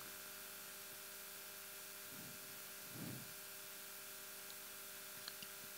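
Faint steady electrical mains hum over a thin hiss, close to room tone. Two soft low rustles come about two and three seconds in, and there are a couple of tiny ticks near the end.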